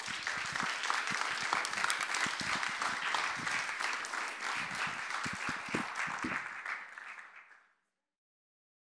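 Audience applauding, many hands clapping together; the applause fades out shortly before the end.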